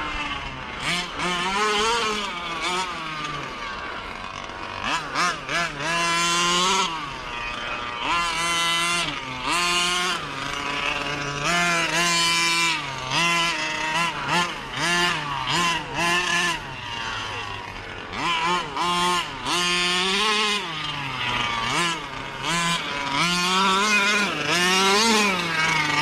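Two-stroke petrol engine of a 1/5-scale 30 Degrees North DDT RC car revving up and falling back again and again in throttle bursts of a second or two as it is driven. The driver judges the engine to be running rich.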